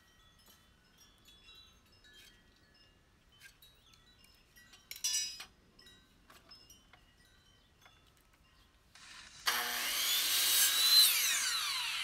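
A compound miter saw is switched on near the end, its motor whining up to speed and then starting to wind down. Before that there are only faint scattered high tones and a brief rattle about five seconds in.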